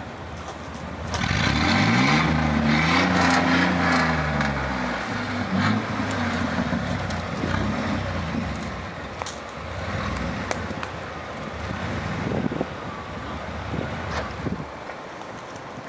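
Chevrolet S10 pickup's 4.3-litre V6 revved once, the engine note climbing and falling back over about four seconds, then rumbling unevenly near idle through its exhaust.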